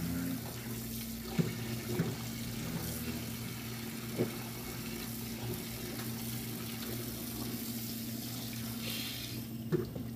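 Cold tap water running into a steel bowl in a stainless steel sink while hands knead and rinse boiled goat meat, with a few soft knocks and splashes. The tap flow stops near the end. The boiled meat is being cooled and rinsed in cold water.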